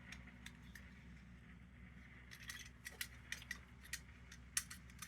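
Faint clicks and light metallic taps of small lantern burner parts being handled, sparse at first and more frequent from about halfway in, over a low steady hum.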